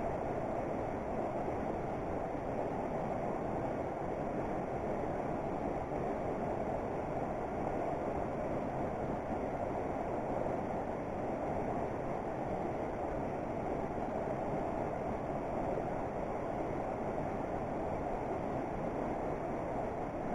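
Steady rushing of running water from a nearby creek, an even, unbroken wash of sound.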